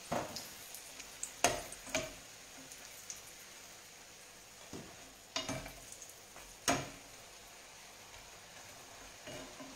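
Frappe (thin strips of sweet dough) frying in hot oil in a pan, a steady sizzle, broken by about five sharp clicks of metal utensils against the pan as the pieces are turned.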